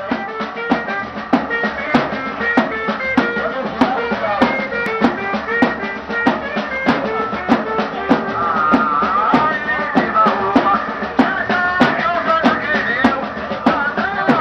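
Live ciranda music: a large bass drum (bombo) struck on a steady beat a little under twice a second, with a melody of held notes over it.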